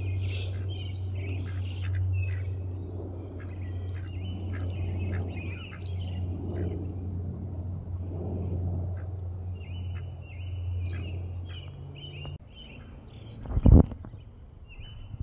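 Many short, high bird chirps over a steady low hum that cuts off abruptly about twelve seconds in. Shortly after, there is one short, loud thump.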